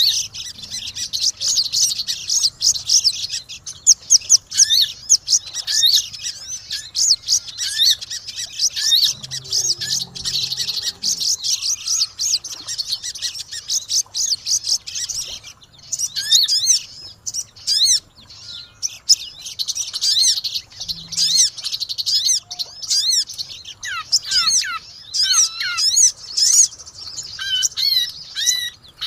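Pleci (white-eyes) and sogon songbirds chirping noisily: a dense, fast, high twittering through the first half, then more spaced whistled chirps that rise and fall in pitch.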